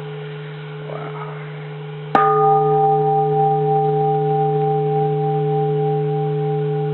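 Large bronze Japanese temple bell, already ringing from an earlier strike, is struck once with a heavy wooden striker about two seconds in. It rings on with several steady tones that fade slowly.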